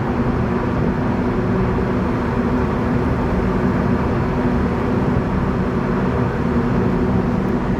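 Steady low drone of a large container ship's engines under way, with a few held tones over a rumbling hum.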